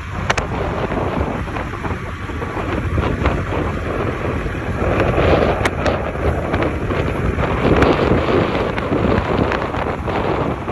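Storm wind buffeting the microphone: a loud, steady rush that swells in gusts about halfway through and again a few seconds later, with a few faint ticks.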